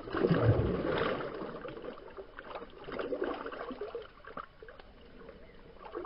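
A large asp kicks free of hands in shallow river water with one loud splash that dies away over a second or so. Smaller splashes and sloshing follow as hands swish and flick water, swelling again about halfway through and near the end.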